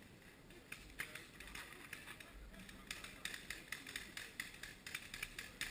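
Paintball markers firing in the distance: sharp pops in quick, irregular strings, coming thickest in the second half.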